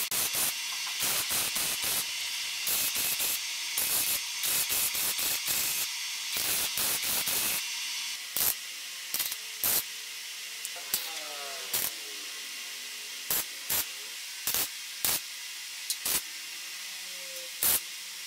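Wire-feed welder arc crackling and sputtering as steel tubing is welded. The crackle runs almost without a break for the first seven seconds or so, then comes in short separate bursts about a second or two apart, over a steady hiss.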